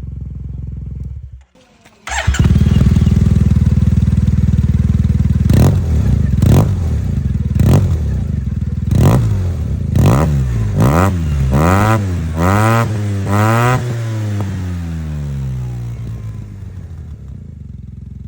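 Yamaha T-Max's parallel-twin engine through an aftermarket sport exhaust, idling, then blipped: single throttle blips about a second apart, then a quick run of rising and falling revs, before it settles back to idle. The sound drops out briefly about a second and a half in, then comes back louder.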